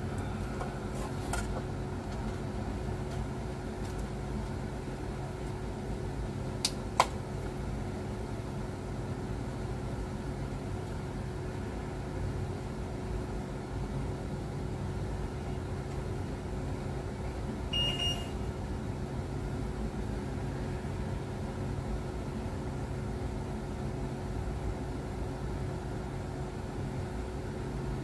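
Steady machine hum with a constant low tone, like ventilation running in the aircraft compartment. Two sharp metallic clicks about seven seconds in and a brief ringing clink near eighteen seconds come from hand tools on the oxygen cylinder's fittings.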